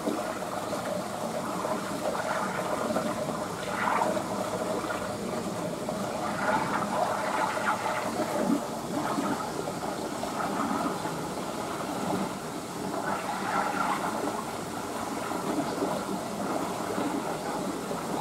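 Water running steadily in the pool, a constant rushing with small surges.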